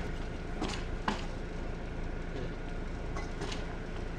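Steady low background rumble with a few short, sharp clicks: two in the first second or so and two more near the end.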